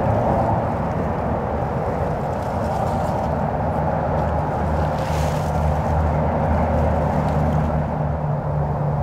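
Steady outdoor background rumble with a low hum underneath, unbroken throughout.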